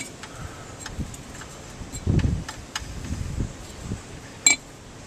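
Hand unscrewing the wing nut on a 1974 Ford F250's air cleaner lid, opening it to pour gas down the carburetor: scattered small metal clicks and scrapes, with a sharper clink about four and a half seconds in. A louder low rumble comes about two seconds in.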